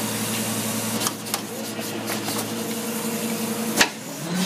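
Rear-loading garbage truck engine idling with a steady hum. Near the end, a sharp clack as the packer control lever is worked, then the engine speeds up with a rising pitch as the compactor is engaged.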